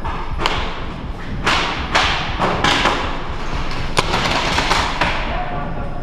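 Compressed-air paintball markers firing: a string of sharp shots, irregularly spaced about every half second, each trailing off in a hiss.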